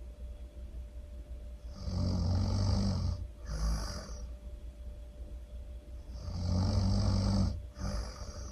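A person snoring loudly in a slow, regular rhythm: two long snores, each followed by a shorter, airier breath with a hiss.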